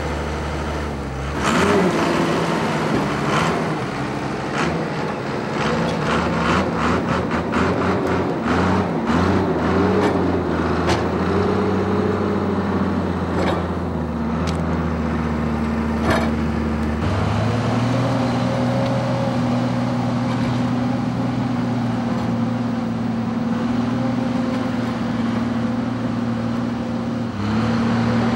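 Timberjack cable skidder's diesel engine running, with a fast run of clicks and knocks through the first half. About halfway the engine note steps up and holds steady as the skidder drives.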